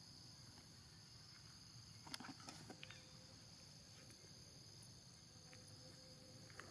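Faint, steady insect chorus, with a few brief sharp sounds about two seconds in.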